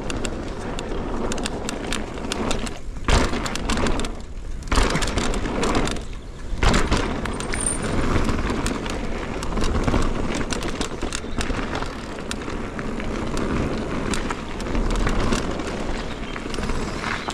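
Mountain bike ridden fast down a dirt singletrack: tyres rolling over dirt and stones with a steady rumble, wind on the helmet-mounted microphone, and many small rattles and knocks from the bike. The noise drops away briefly a few times in the first seven seconds.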